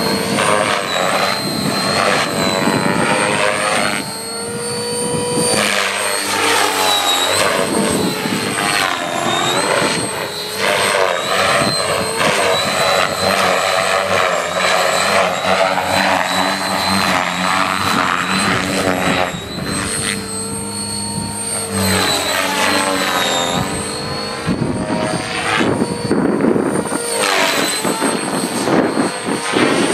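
Radio-controlled JR Super Voyager 500 model helicopter flying. Its rotor and motor sound sweeps up and down in pitch again and again as it manoeuvres and passes, over a steady high whine.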